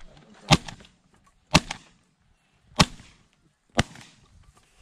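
Four shotgun shots about a second apart, each a single sharp crack.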